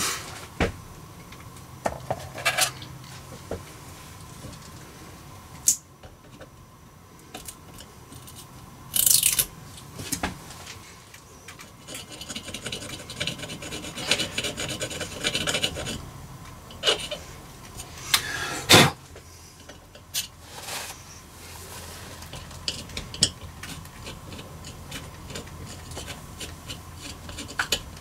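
Small hand-work sounds at a breaker panel as labels are fitted with a small tool: scattered clicks and taps, a longer rasping scrape in the middle, and one sharp click, the loudest, about two thirds in.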